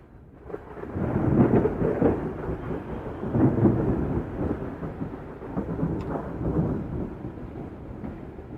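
Rolling thunder over steady rain. The rumble builds about a second in, swells twice, then slowly dies away.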